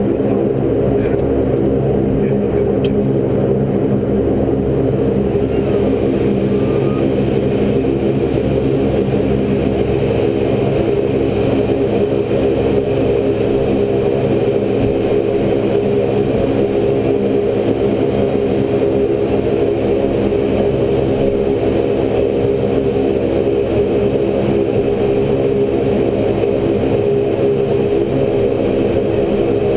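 Twin turboprop engines and propellers of a Saab 340 running steadily, heard from inside the cockpit as an even, dense drone that holds one pitch throughout.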